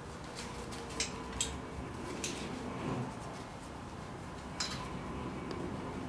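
A few light metallic clicks and taps, spaced irregularly, from handling a folded bicycle's frame and rack while a strap is fastened around it to hold it folded.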